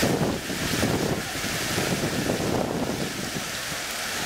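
Wind rumbling and buffeting on the microphone over the steady hiss of water splashing from ground-level fountain jets.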